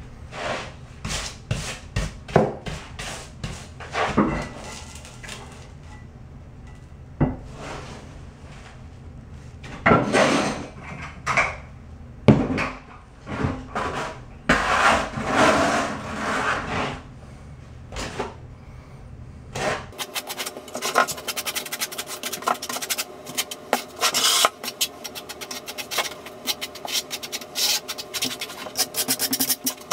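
Steel notched trowel scraping thinset mortar onto a shower curb in repeated irregular strokes. About two-thirds of the way through it changes to a denser run of quick scratchy strokes.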